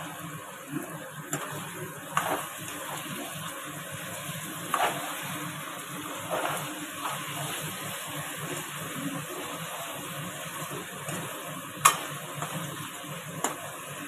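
Chicken legs frying dry in masala in a metal kadhai, sizzling steadily while a steel ladle stirs and scrapes through them. Several sharp clinks of the ladle on the pan, the loudest near the end.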